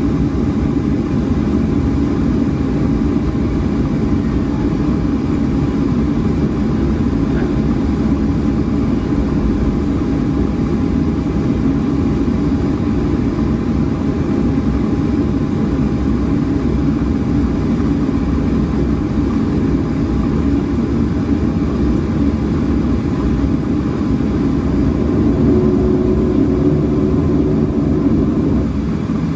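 Cabin noise of a Boeing 737 taxiing after landing: a steady low rumble of the jet engines at idle, with a thin steady hum on top. Near the end it grows a little louder and a second hum joins in.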